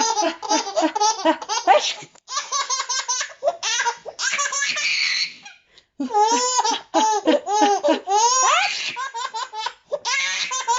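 A baby laughing hard: fast runs of high-pitched belly laughs and squeals, with short breaks about two seconds in and again near the middle.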